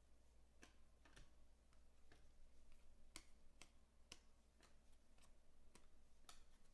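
Faint, irregular clicks of 2020 Panini Select baseball cards being flipped one at a time through a stack in the hands, with an edge snapping against the next card about every half second.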